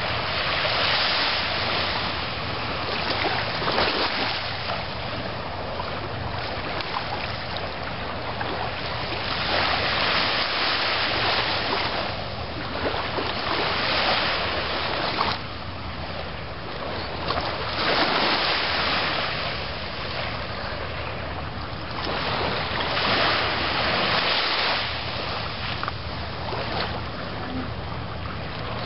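Ocean surf breaking and washing up the beach: a steady rush of noise that swells every few seconds as waves come in.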